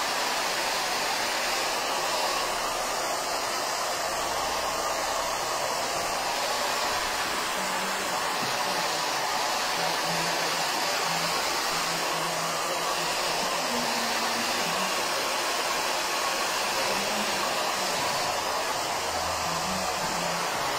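Handheld hair dryer blowing steadily, drying the fresh paint on a canvas.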